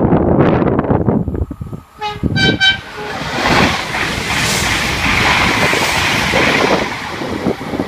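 Wind buffeting the microphone, then two short horn toots about two seconds in from two Bombardier AGC regional trainsets coupled together, followed by the loud, even rush of the train passing close by.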